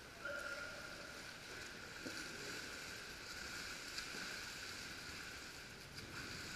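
Water splashing and sloshing around a plastic whitewater kayak as the paddler tips it over and rolls on his side in the pool, over the steady, echoing background of an indoor pool hall.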